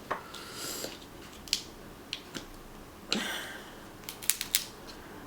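Snow crab shells being cracked and snapped apart by hand: a string of sharp cracks and crunches, with a longer crunch about three seconds in and three quick snaps a second later.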